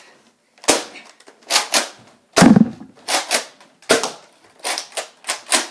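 Nerf foam-dart blasters firing: a series of about ten sharp pops, several in quick pairs. One louder, deeper hit comes about two and a half seconds in.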